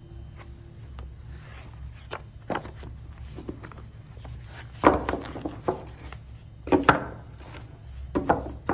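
Stack of printed paper sheets being handled on a wooden table: sheets rustling and sliding, with a few quieter rustles at first and louder crackles as the stack is flexed midway and near the end.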